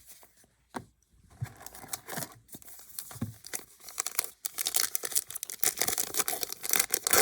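Trading-card pack wrapper being torn open and crinkled, a papery crackling that grows denser and louder about four and a half seconds in.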